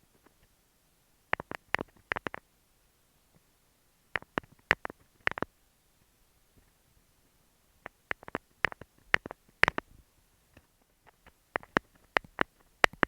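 Fingernails tapping on an earphone microphone: quick little clusters of sharp clicks, three to six taps at a time, with short pauses between the clusters.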